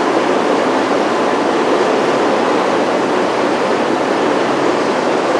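Steady, loud rushing noise of workshop machinery in a plating shop, even and without any clear tone or rhythm.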